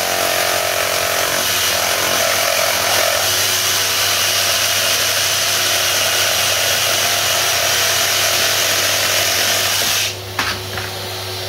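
Ryobi One+ HP 18V brushless one-handed reciprocating saw cutting through timber and an embedded screw, running steadily and stopping suddenly about ten seconds in.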